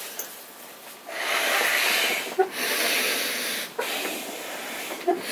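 A man blowing by mouth into the one-way fill valve of an inflatable tent's air frame: long blows of a little over a second each, broken by quick breaths in between, starting about a second in.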